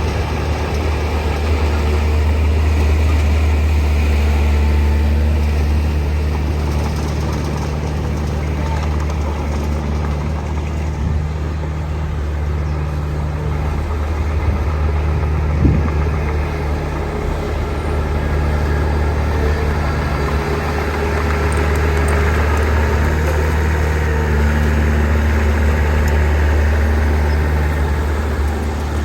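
Heavy diesel engine of an earthmoving machine running steadily with a deep drone, with a single sharp knock about halfway through.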